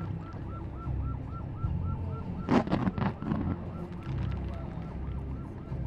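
Fireworks display: two sharp firework bangs about half a second apart, roughly two and a half seconds in, over a steady low rumble and a short high tone repeating about four times a second.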